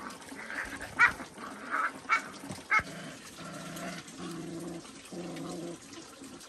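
A puppy yipping and whimpering: a few short sharp cries, then three lower drawn-out calls about half a second each.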